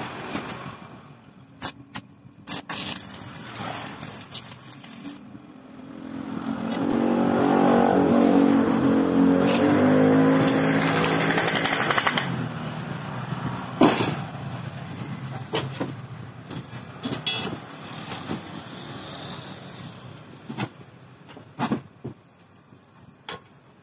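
A motor vehicle engine rises in pitch and loudness and fades again over about six seconds, from about a quarter of the way in until about halfway through. Scattered sharp knocks and clicks of metal being handled on the workbench come before and after it.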